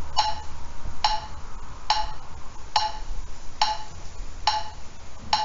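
Metronome clicking steadily at about seventy beats a minute, seven clicks.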